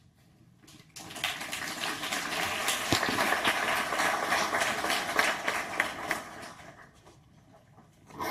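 Audience applauding. The clapping starts all at once about a second in, then dies away a little before the end.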